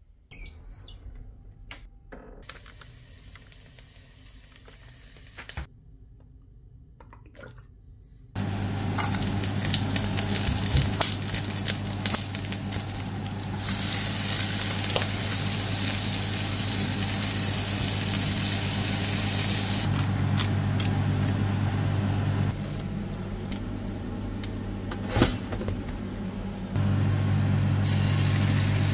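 Prawns frying in a hot non-stick pan: a loud, even sizzle that starts suddenly about eight seconds in, over a steady low hum. The first seconds are quiet apart from a few light clicks.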